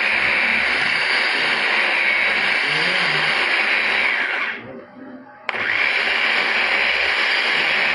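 A workshop tool running with a loud, steady rushing noise that stops about four and a half seconds in and starts again a second later.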